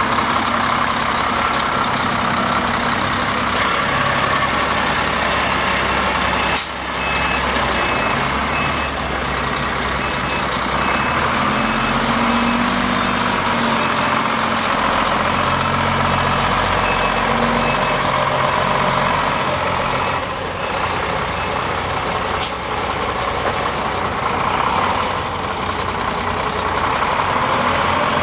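Cummins ISM 10.8-litre inline-six diesel of a 2003 Sterling DS-999 semi truck running steadily. A faint repeating beep sounds for several seconds in the middle, and there are two sharp clicks.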